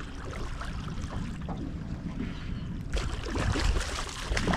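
A hooked fish splashing at the surface beside a small boat, loudest from about three seconds in, over steady water lapping and a low rumble.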